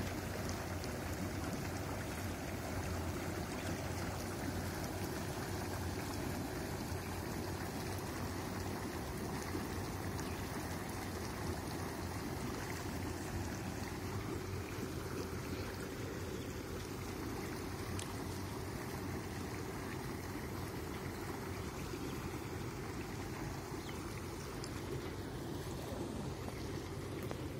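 Jaquar outdoor spa (hot tub) running with its jets on: a steady rush of churning, bubbling water over a constant low machine hum.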